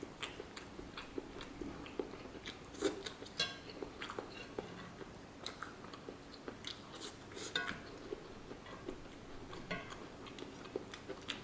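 Close-up chewing of a mouthful of pepper steak, rice and canned corn: irregular wet mouth clicks and light crunches, a few louder ones scattered through.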